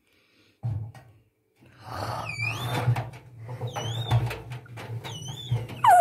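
LG front-loading washing machine on rinse: after a pause with a short knock, the drum starts turning again with a low steady hum and repeated short high-pitched squeaks that dip and rise in pitch.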